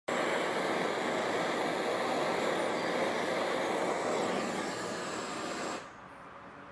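Steady mechanical noise of an industrial CNC machine at work, with no clear tone. It drops away sharply about six seconds in.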